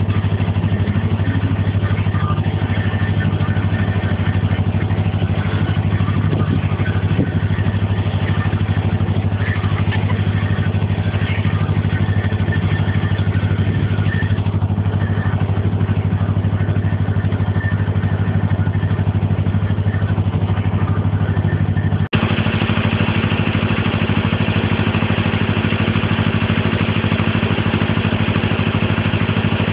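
Canal narrowboat's engine running steadily under way, a low, even drone. About two-thirds of the way in the sound breaks off for an instant and carries on a little brighter.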